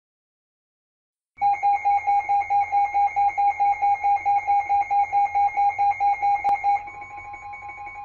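Electronic emergency-alert tone from a mock EAS broadcast: a loud, high beep pulsing about four times a second, starting about a second and a half in. Near the end the pulsing stops and a quieter steady tone carries on.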